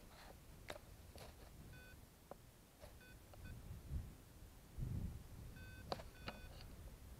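A few short electronic beeps, each a steady tone, spaced unevenly, from a small device. Soft clicks and two low rumbles on the microphone come about four and five seconds in.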